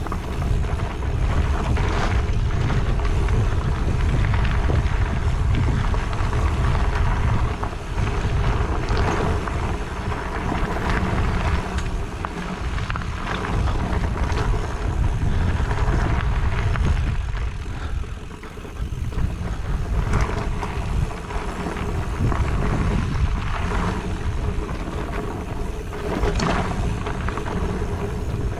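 Wind rumbling on the microphone and tyres running over a dirt trail as a mountain bike is ridden, with now and then a knock as the bike goes over bumps.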